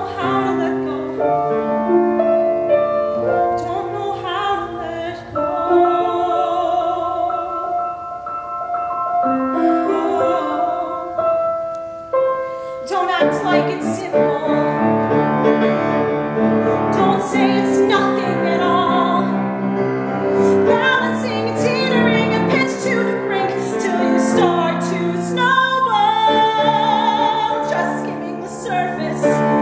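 A woman singing a musical-theatre ballad in a trained, operatic voice with vibrato, accompanied by a grand piano. The accompaniment is sparse at first and grows fuller and louder about thirteen seconds in.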